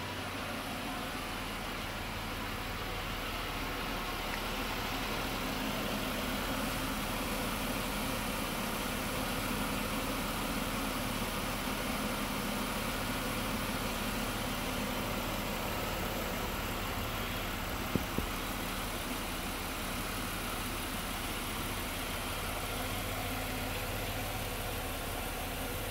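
2004 Buick LeSabre's 3.8-litre 3800 Series II V6 idling steadily, with a single brief click about two-thirds of the way through.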